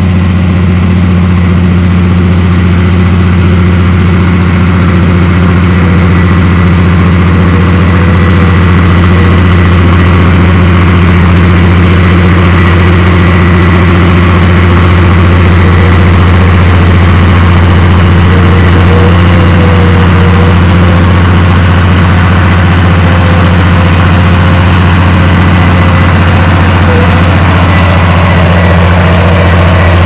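Komatsu D58P bulldozer's diesel engine running steadily under load as its blade pushes dirt: a deep, even drone with a faint high whine above it.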